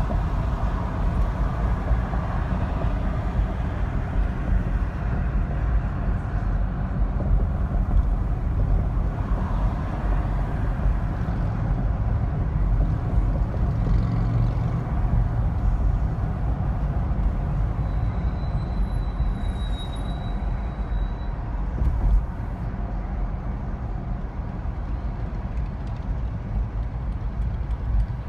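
Car driving along a city street: a steady low rumble of road and engine noise that eases slightly in the last few seconds. A faint high whine lasts a couple of seconds, followed by a single brief knock about three-quarters of the way through.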